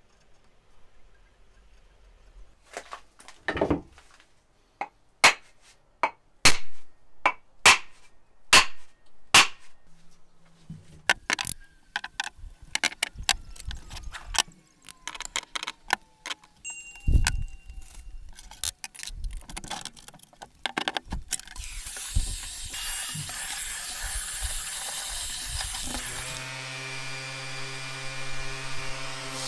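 A run of sharp knocks, a little over one a second, then a busier clatter. About three seconds before the end, a Makita cordless random orbital sander's motor starts and runs with a steady hum.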